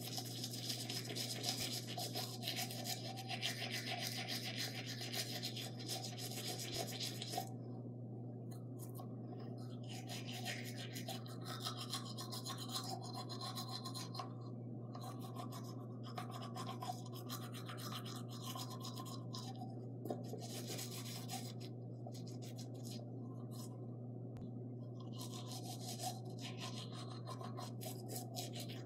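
Toothbrush bristles scrubbing teeth, a rasping back-and-forth that stops and starts with short pauses, over a steady low hum.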